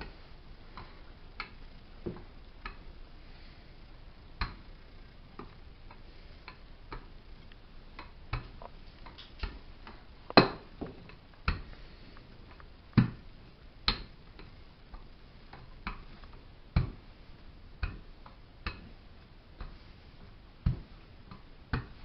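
Rolling pin working dough on a wooden tabletop: irregular sharp clicks and knocks, about one every second, a few of them with a heavier thud.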